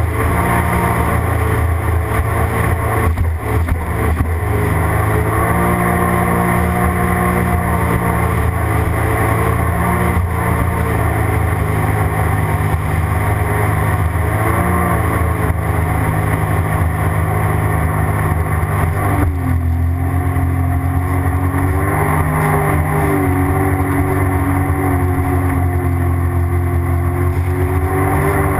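Sea-Doo GTX jet ski engine running under way. Its pitch shifts up and down with the throttle, with a clear drop about two-thirds of the way through. It is picked up by a camera mounted on the front of the hull.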